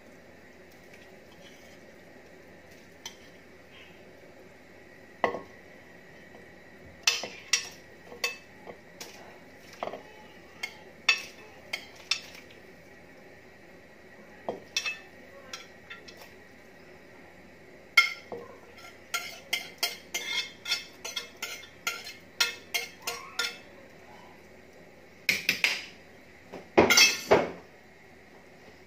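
A spoon knocking and scraping against a ceramic plate in many short clinks as chicken pieces are pushed off it into a cooking pot, with a louder clatter near the end.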